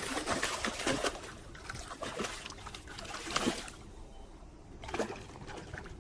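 Hooked big golden carp thrashing at the water's surface, splashing and sloshing in irregular bursts: a cluster in the first second, then more about two, three and a half and five seconds in.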